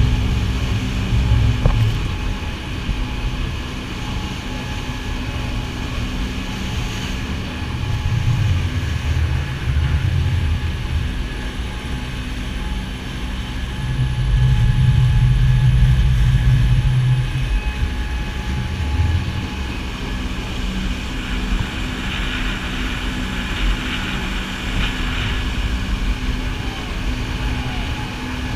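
A glass-bottom tour boat running at speed: its engines give a steady drone while wind buffets the microphone in gusts, with the rush of the wake underneath.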